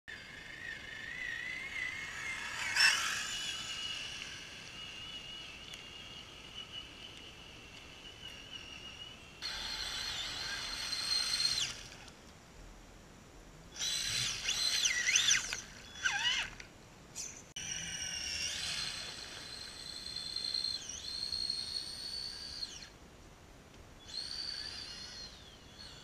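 Traxxas Summit RC truck's electric motor and drivetrain whining, rising and falling in pitch with the throttle in several runs with short gaps between them. A sharp knock about three seconds in is the loudest moment.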